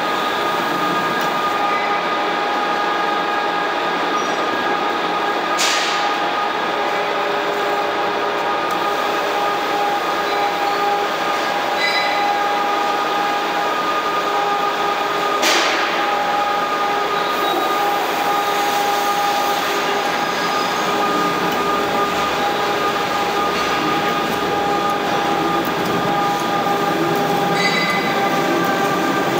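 Napkin paper folding machine running: a steady mechanical din with a few steady whining tones over it, and two brief bursts of hiss about ten seconds apart.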